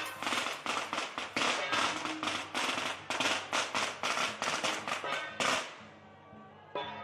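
A string of firecrackers popping in rapid, uneven cracks, stopping abruptly about five and a half seconds in, with procession music playing underneath and carrying on faintly after the popping stops.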